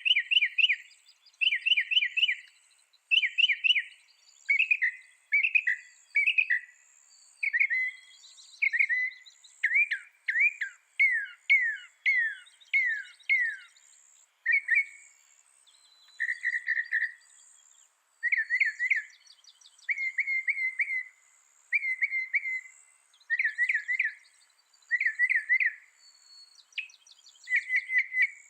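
Mockingbird singing: a string of short chirped phrases, each repeated several times in quick succession before it switches to a new one. Fainter, higher chirps from other birds or insects run underneath.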